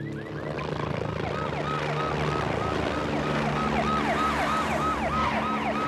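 Police car siren in a fast repeating yelp, coming in about a second in and growing louder as it approaches.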